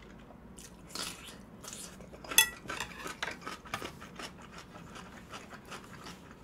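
Eating utensils clinking and scraping against a dish, in a run of small clicks, with one sharp ringing clink about two and a half seconds in.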